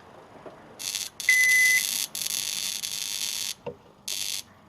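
Sharp R-350E inverter microwave buzzing loudly in several harsh bursts, the longest over a second. The buzzing is electrical arcing at an unsoldered joint on its incoming 240 V power circuit. A short, high, steady beep sounds about a second in.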